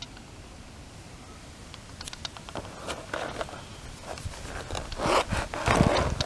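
Pages of a spiral-bound handmade book being turned by hand: paper rustling against the wire binding with light clicks, starting about two seconds in and loudest near the end.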